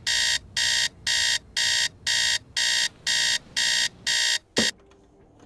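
Electronic alarm clock beeping, about two buzzy beeps a second. It cuts off suddenly about four and a half seconds in, with a short thump.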